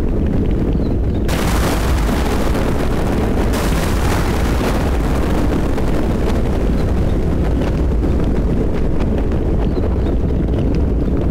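Thunderstorm with rain: a continuous deep rumble of thunder, with a sudden surge of hissing storm noise about a second in that stays strong for about two seconds and then slowly fades.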